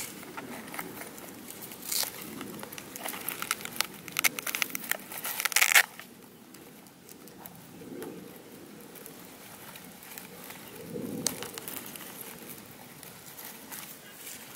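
Hands handling a corrugated cardboard model airplane and pushing a battery pack with its wires into the fuselage. Dense crackling and crinkling builds over the first several seconds and stops sharply about six seconds in, followed by a few softer rustles.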